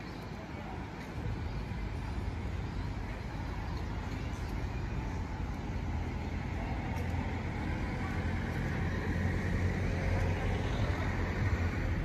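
Outdoor street ambience of traffic on a seafront road: a steady low rumble that comes in about a second in and slowly grows louder.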